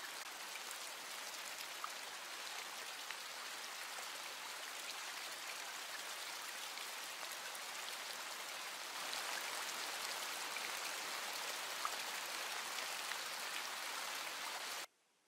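Steady hiss of running, trickling water with scattered small drips in a cistern. It gets a little louder about nine seconds in and cuts off suddenly near the end.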